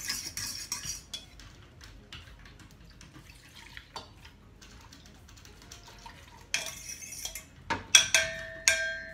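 Liquid soap mixture being poured out and divided between two bowls, with soft scrapes and light taps of dishes and utensils. Near the end come a few sharp clinks of the dishes, one left ringing for about a second.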